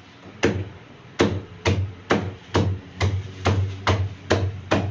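A run of about ten sharp knocks, each with a short low thud, coming faster until they fall at roughly two a second.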